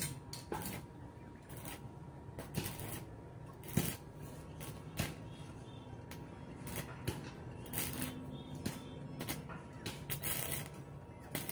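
Stick (arc) welder crackling in short, irregular bursts as ribbed steel sheets are tack-welded to a steel gate frame.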